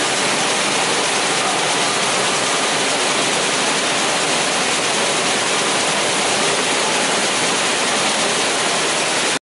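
Steady rushing rattle of cotton seed streaming across the vibrating slatted deck of a running seed-grading machine. It cuts off abruptly at the very end.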